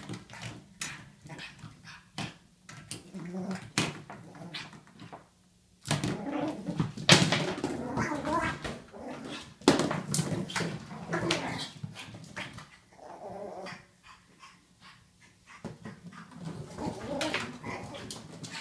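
Pug puppy whining excitedly while wrestling a toy, with knocks and clicks of the toy and his claws on the hardwood floor. The busiest stretches come in the middle and again near the end.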